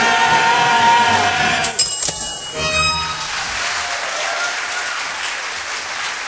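The singers and pit orchestra hold the final chord of a show tune, which cuts off about a second and a half in. Audience applause follows.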